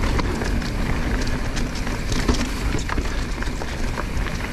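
Mountain bike riding over a dirt trail: a steady low rumble of wind on the camera microphone and tyre noise, with frequent sharp clicks and rattles from the bike.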